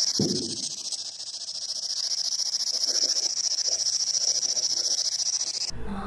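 P-SB11 spirit box sweeping the radio bands, giving a steady, high-pitched, rapidly pulsing hiss of static with a few faint broken voice-like fragments, the strange interference a ghost hunter listens for. It cuts off suddenly near the end, when music starts.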